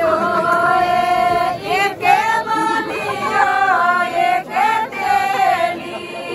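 Women singing a folk wedding song (vivah geet) together in long held, sliding notes.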